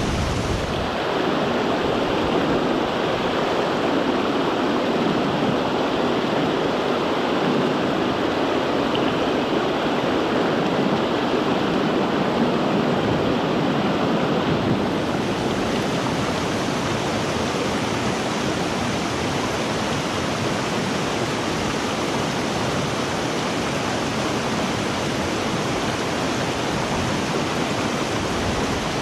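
River water rushing steadily over rocks, a dense, even roar of flowing water whose texture shifts slightly about halfway through.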